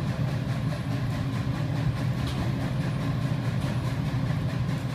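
Industrial furnace plant running under DC power: a steady low hum over a constant machinery noise.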